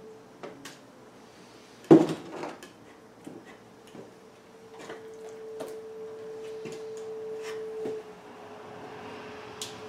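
Two-handled fleshing knife scraping fat and flesh off a beaver pelt on a fleshing board, with scattered light clicks. A sharp knock about two seconds in is the loudest sound.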